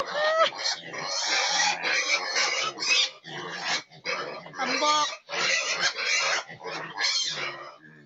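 Pigs grunting in short, rapid, repeated bursts, with a brief pitched squeal just after the start and another around the middle.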